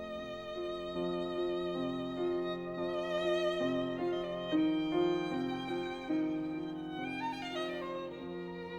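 Background music: a violin playing a slow melody with vibrato over held lower accompanying notes, with a quick falling run near the end.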